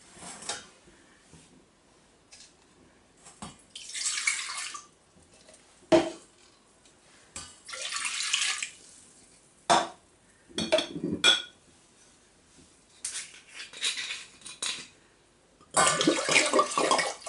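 Liquid being poured into a stainless steel pot, red wine and red wine vinegar splashing in from glass jugs, in a few separate pours. Between the pours come short knocks and clinks of glass jugs and bowls against the pot, with a denser clatter and splash near the end.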